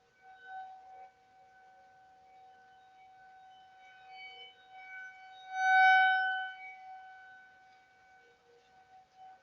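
Outdoor tornado warning sirens wailing on one steady pitch, picked up by a video doorbell's microphone: a Federal Signal 2001-DC a block away, with ASC T-128s farther off. The sound swells to its loudest once about six seconds in as the rotating siren's horn sweeps toward the house, then fades back.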